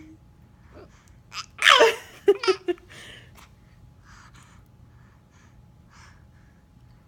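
A person's loud hiccup with a falling squeal about a second and a half in, followed by three short giggles, then soft breathing.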